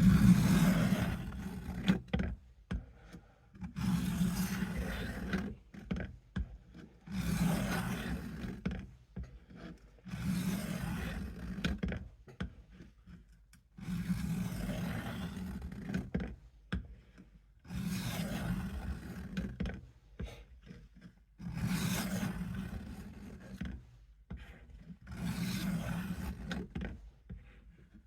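Case USMC knife blade drawn in slow strokes across the coarse plate of a Work Sharp guided sharpener: a rasping scrape about every three and a half seconds, each lasting a second and a half to two seconds, about eight strokes in all, sharpening the second side of the edge.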